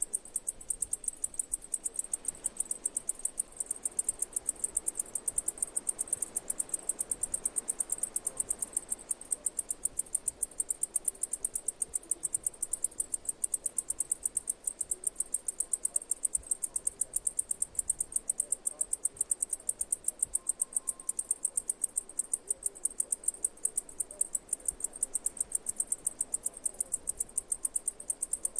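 An insect chirping: an even, rapid train of high-pitched chirps, several a second, keeping a steady rhythm.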